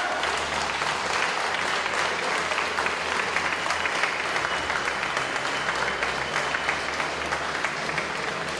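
Boxing crowd applauding steadily at the end of the bout, a dense patter of many hands clapping.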